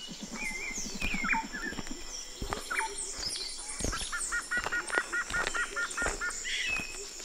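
Jungle ambience of assorted bird calls: scattered whistles and chirps, with a quick run of about ten repeated chirps in the middle, over a rapid low pulsing at the start and a few scattered low thumps.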